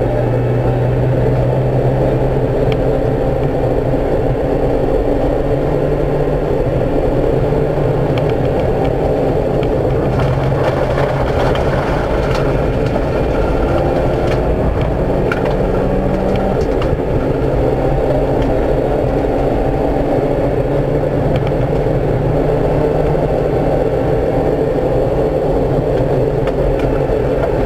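Rally car engine heard from inside the car, driven hard along a gravel road, its note stepping up and down as it works through the gears. Scattered short clicks and cracks sound over it, most of them about halfway through.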